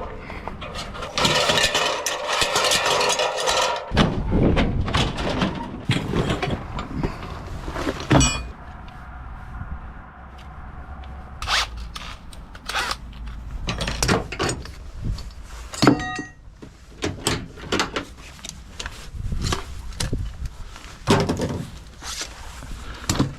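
Work with tools and materials: a dense, harsh noise for about three seconds starting a second in, then irregular knocks, thunks and scrapes.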